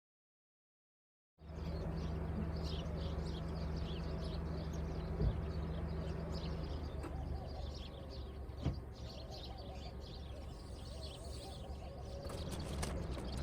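Silence for about the first second and a half, then small birds chirping over a steady low hum, with two brief knocks in the middle.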